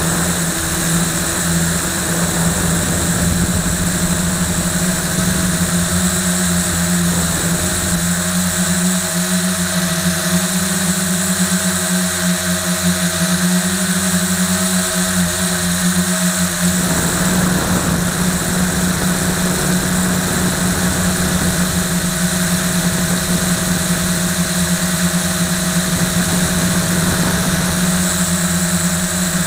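Motors and propellers of a LaTrax Alias hobby quadcopter, heard from the action camera strapped to its frame, running in flight as a loud, steady, even-pitched buzz.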